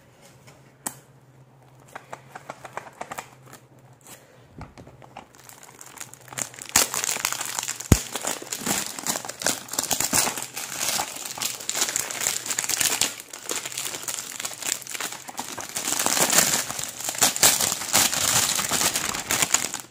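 Clear plastic shrink-wrap being cut with a knife and peeled off a boxed product pack. There are a few light ticks at first, then dense crinkling from about six seconds in, with one sharp click near eight seconds.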